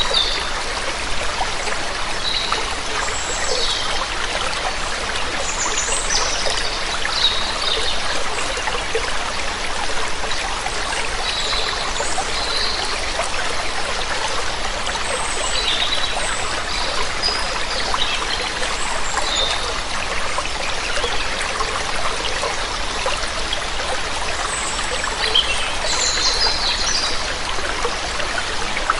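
Waterfall water running steadily, with birds chirping: short high calls scattered throughout.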